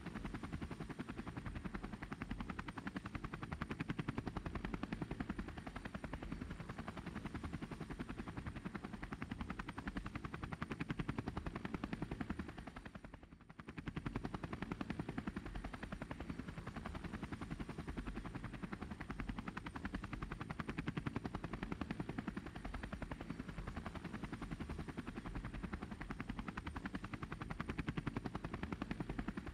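Helicopter rotor sound, a steady rapid chop of the blades, that fades away briefly about thirteen seconds in and then comes back.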